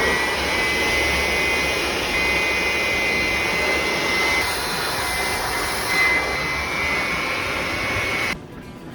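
Loud, steady rush of air from a motor-driven blower, with a high whine. It starts suddenly and cuts off suddenly near the end.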